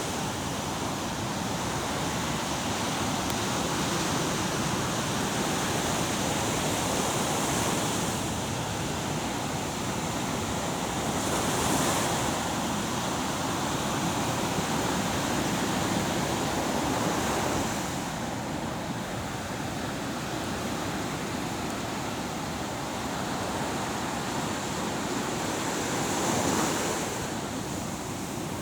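Steady rushing noise of water and wind, swelling briefly twice, about midway and near the end.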